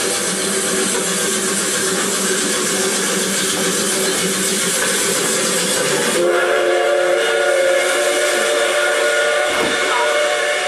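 Steam train sound effect: a loud, steady hiss of steam, then about six seconds in the hiss thins and a steady whistle of several notes at once sounds over it.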